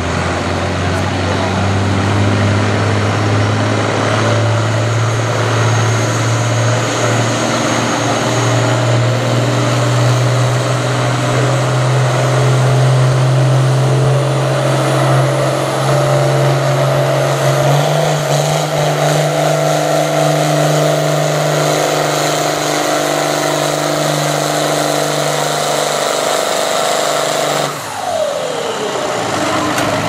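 International Harvester 766 Turbo tractor's diesel engine at full throttle, pulling a weight-transfer sled. Its pitch climbs steadily as the pull goes on, holds high, then falls sharply near the end as the throttle comes off.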